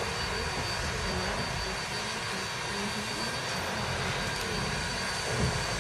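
Ex-Canadian National 0-6-0 steam locomotive standing under steam: a steady hiss and low rumble of the working engine, with a faint thin high tone throughout.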